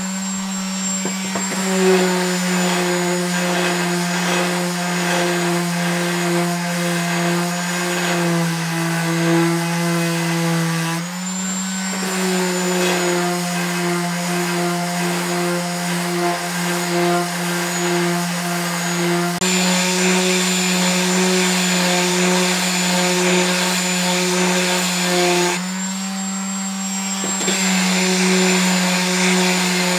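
Handheld electric power tool running steadily as it works a thin wooden strip: a constant motor hum with a high whine. The pitch and level shift abruptly a few times.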